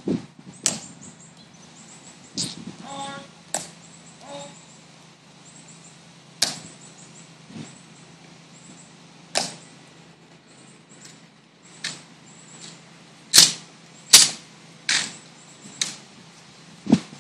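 Sharp, single cracks and clicks of a ceremonial honor guard's drill: heel clicks on the stone plaza and hands slapping rifles during the manual of arms. They come one at a time, a second to three seconds apart, and the loudest pair falls about thirteen seconds in.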